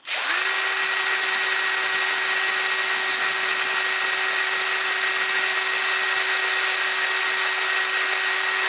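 Electric drill starting up and then running at a steady speed, a constant whine over hiss, as its twist bit cuts into a damaged, oiled cylinder head bolt to drill it out.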